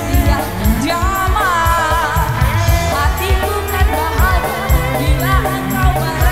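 Live dangdut band music over a PA sound system, with a steady fast drum beat under keyboard notes and a woman singing a bending, ornamented melody into a microphone.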